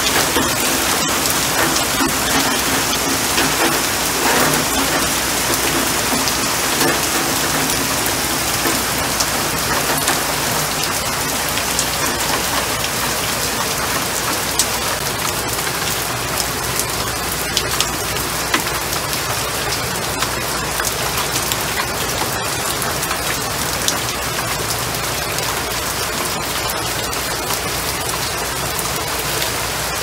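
Rain falling steadily onto leaves and onto standing water on the ground: a dense, even hiss of drops with many small, sharp drop hits scattered through it.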